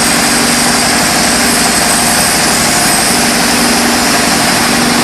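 Stone crusher machine running with a loud, steady mechanical noise.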